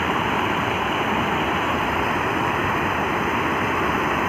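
Water spilling over a low weir, a steady rushing.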